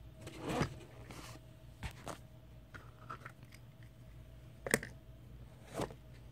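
Handling noises from a board book and its plastic pull-back ladybird toy: a handful of separate soft clicks and knocks with light rustling, the sharpest about three-quarters of the way through.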